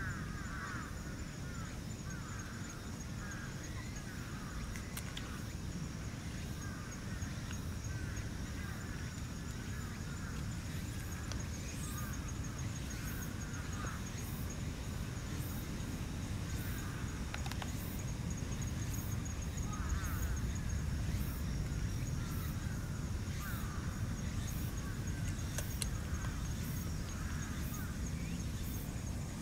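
Four-week-old red Shiba Inu puppies making many short squeaks while nursing, over a steady low rumble. A steady high buzz runs behind them, joined about halfway through by faint high pulses about once a second.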